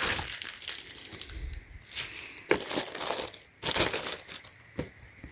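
Packaging being handled and opened: irregular crinkling and rustling, with a few sharper crackles.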